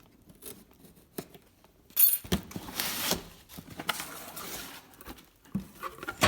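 A cardboard shipping box being opened and its contents handled: a sharp click about two seconds in, then rustling and scraping of cardboard and packing, with scattered small knocks.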